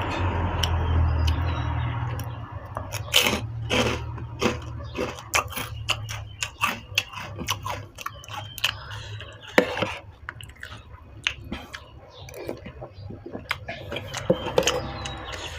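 A person eating close to the microphone: chewing and biting noises with many quick wet clicks and smacks, while eating stewed pork noodle soup. A low vehicle rumble fades away over the first couple of seconds.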